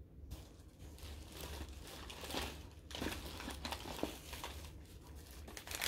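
Paper gift bag crinkling and rustling in irregular bursts as it is handled and opened, starting about a third of a second in.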